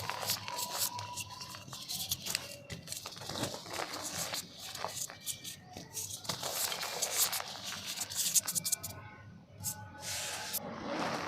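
Soft, dusty black mud crumbling in a clay pot: an uneven run of crackling, gritty crunches.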